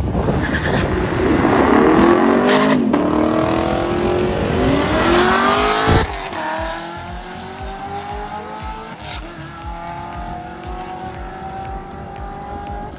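Drag race car accelerating hard down the strip. Its engine pitch climbs and drops sharply at gear shifts about three and six seconds in, then it runs on quieter with the pitch still rising.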